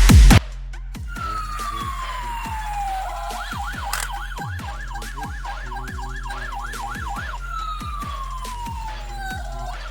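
Electronic police siren: a falling wail, then a fast up-and-down yelp for about four seconds, then another falling wail and more yelp. Under it runs music with a regular low beat. A louder burst of music cuts off just after the start.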